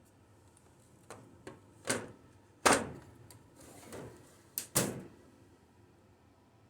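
A 3D-printed plastic case for machining parallels and its lid being handled: a series of sharp clacks and knocks, about eight in all, the loudest near the middle.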